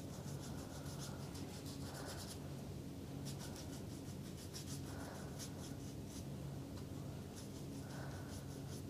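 A paintbrush loaded with acrylic paint is brushed across paper in repeated faint, scratchy strokes.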